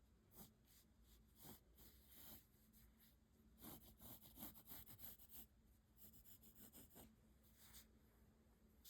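Graphite pencil drawing on paper: short scratching strokes in quick, irregular runs, the busiest stretch about halfway through, over a faint steady hum.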